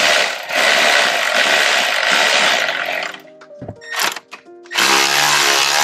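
Power tool running in two runs while driving in the bolts that secure the starter motor: the first lasts about three seconds, then a few light clicks follow, and the second starts about a second before the end.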